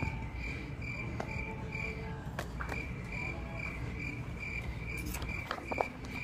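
A high-pitched chirp repeating about three times a second, with a short break about two seconds in, over a low background rumble. A few sharp clicks are heard near the middle and toward the end.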